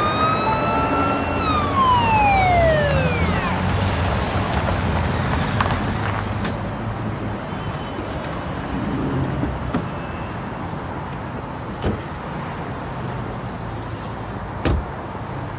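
Police car siren holding its pitch, then winding down and dying out over the first few seconds, followed by steady traffic and engine rumble with a couple of sharp knocks near the end.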